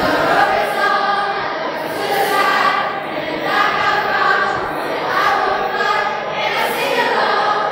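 A group of teenagers singing together in a loose chorus, many voices blending with no clear instrument beneath them.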